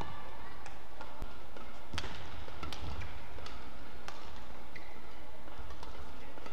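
Badminton rally: sharp cracks of rackets striking the shuttlecock about once a second, over a steady low arena hum.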